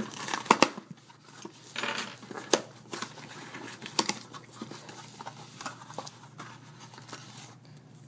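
Packing tape torn and peeled off a small cardboard box and the flaps pulled open: rustling and crinkling with a few sharp snaps in the first half, quieter handling of the cardboard after.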